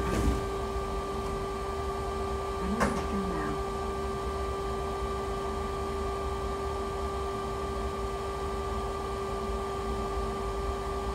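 Steady electric hum holding two level tones over a low rumble, inside a stationary Heathrow pod, the driverless electric ULTra car. Two brief knocks stand out, one right at the start and one about three seconds in.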